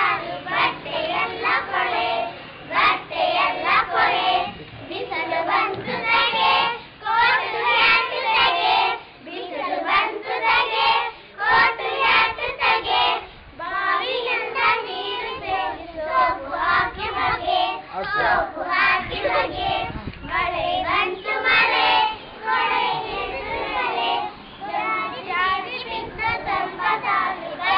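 A group of young children singing a song together in short phrases with brief pauses between them.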